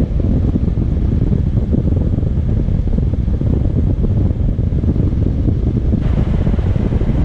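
Wind rushing over the microphone of a motorcycle riding at road speed, a loud, steady low rumble of wind and road noise, with more hiss coming in about six seconds in.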